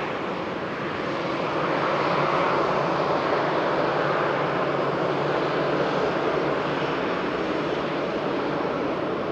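Jet airliner engines running: a steady rush of noise that swells slightly about a second and a half in, then holds.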